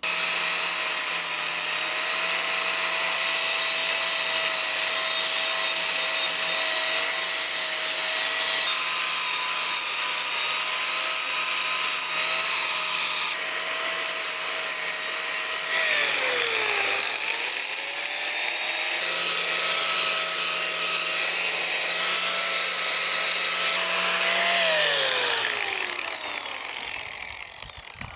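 Angle grinder running steadily against the metal roof rack, grinding off old paint and rust before repainting. It is switched off and winds down about halfway through, starts again a second or so later, and winds down again near the end.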